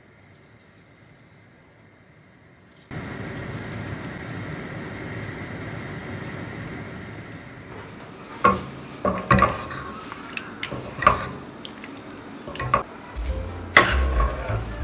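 Pot of vegetable soup simmering on a gas hob, a steady hiss that starts suddenly about three seconds in. From about eight seconds, a spoon stirring and knocking against the stainless steel pot, with sharp clinks near the end as a ladle scoops.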